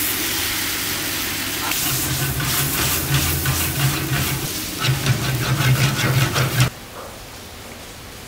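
Fried lagman noodles sizzling in a hot wok over a high gas flame, with rapid metal clanks and scrapes of a ladle against the wok from about two seconds in. The sound cuts off abruptly near the end, leaving a quieter steady hiss.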